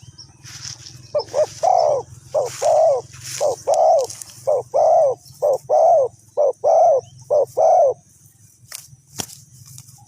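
Spotted dove cooing: seven phrases in a steady rhythm, each a short coo followed by a longer arched one, stopping about eight seconds in.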